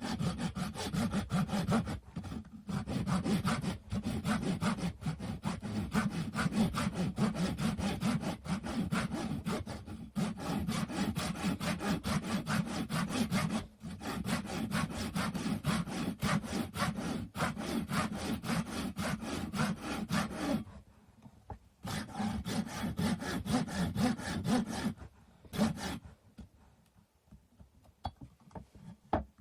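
Hand saw cutting through a wooden stick with quick, even back-and-forth strokes. It stops about two-thirds of the way through, resumes for a few seconds, then goes quiet near the end.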